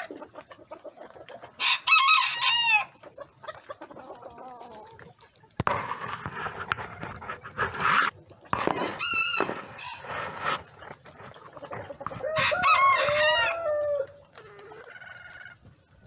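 Bantam roosters crowing: three crows a few seconds apart, the last the longest, with a stretch of loud rough noise between the first and second.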